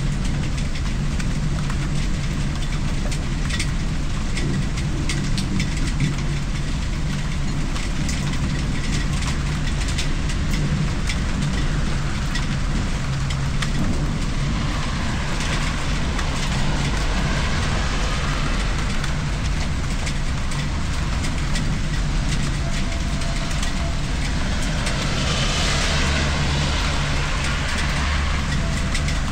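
Steady rain falling, with close drops ticking on the balcony and a low rumble underneath. Twice the hiss swells and fades, like a car passing on a wet road.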